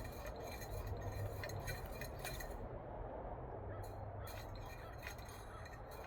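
Small metal parts clicking and clinking, a quick run of light clicks at first and only a few after about two and a half seconds: a steel sleeve and socket being worked into a shock-absorber bushing.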